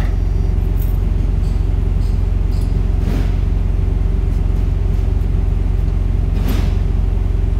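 Heavy diesel truck engine idling steadily with a low rumble, with two short hisses, one about three seconds in and one near six and a half seconds.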